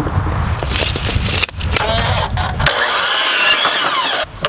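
Knocks of a board being set on a compound miter saw over a low rumble, then from about three seconds in the saw's motor runs with a high, wavering whine.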